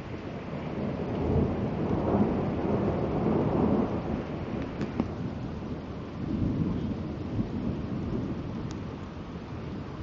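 Thunder rumbling through steady rain. The rumble swells about a second in and again around six seconds in, then eases off.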